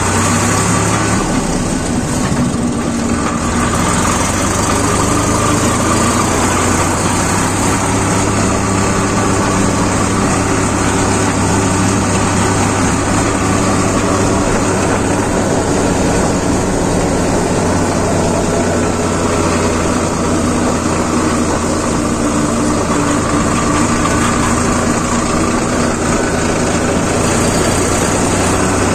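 Sonalika Sikandar tractor's diesel engine running at a steady speed while the tractor is driven along a road.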